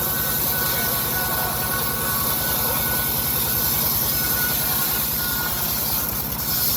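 Engine of a homemade bandsaw sawmill running steadily, with a fast, even low pulse.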